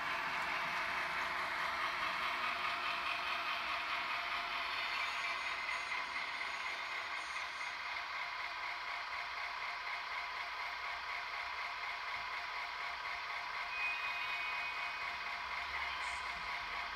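Sound decoder of an HAG H0 model of the Swiss Bm 4/4 II diesel locomotive playing its diesel engine sound through the model's small loudspeaker, steady throughout, with a brief high tone about fourteen seconds in.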